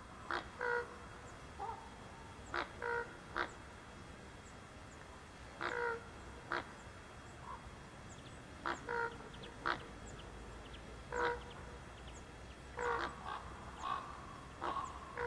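Common ravens calling during courtship: about a dozen short, harsh calls spaced irregularly. Faint high chirps of small birds sound in the background.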